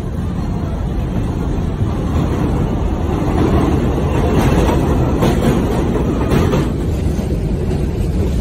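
New York City subway train on an elevated line pulling into the station: a heavy, steady rumble of wheels on rails that builds to its loudest around the middle, with a few sharp clicks a little past halfway.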